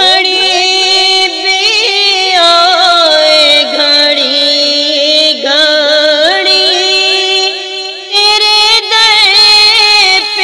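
A high voice singing a wordless devotional naat melody, long held notes that bend with ornamental slides and turns.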